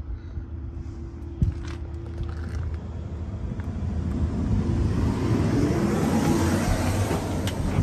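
Rushing wind and handling noise on the microphone, swelling through the middle and easing near the end, over a steady low hum, with a single knock about a second and a half in.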